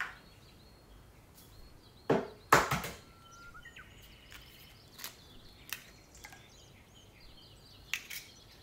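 Eggs being cracked: two sharp knocks of shell about half a second apart, then a few lighter clicks as the shells are broken open.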